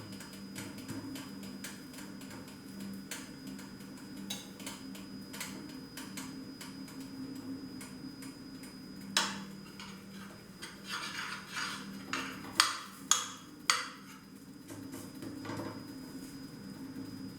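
Metal utensil scraping and clinking against a frying pan while a thin pancake is loosened and flipped. There are several sharp clinks in a row a little past two thirds of the way through, over a low steady hum.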